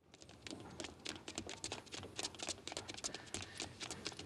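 Quick, overlapping footsteps of several people running across a footbridge: an irregular patter of sharp taps, several a second, fading in over the first half second.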